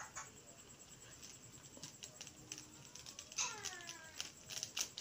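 Faint crinkling and crackling of a plastic spice packet being handled and tipped over a kadai, loudest about three and a half seconds in and again near the end. A short falling call with a few overtones sounds about three and a half seconds in.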